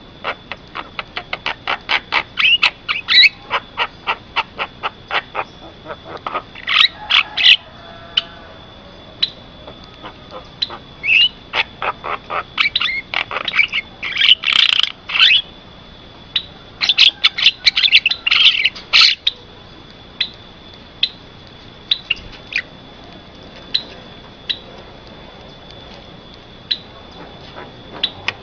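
Javan myna calling: a quickening run of sharp clicking notes, then louder bursts of harsh chattering calls in the middle, thinning to single clicks spaced under a second apart near the end. A thin steady high tone runs underneath throughout.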